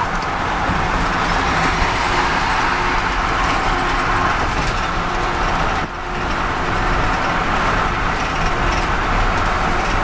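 Steady road, wind and engine noise inside a vehicle's cabin at highway speed, with a brief drop in level about six seconds in.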